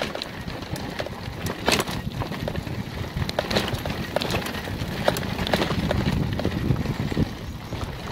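Loaded cargo bike rolling over a bumpy cinder track: tyres crunching on the cinders and the bike and its load rattling, with irregular sharp knocks and clatters over a constant low rumble.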